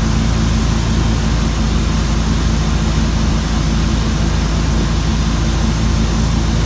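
Wake boat's engine running steadily under way, a constant low hum under an even rush of water and wind noise.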